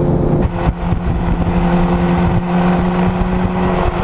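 Sportbike's 600 cc inline-four engine running at a steady engine speed while riding, with wind rushing over the microphone.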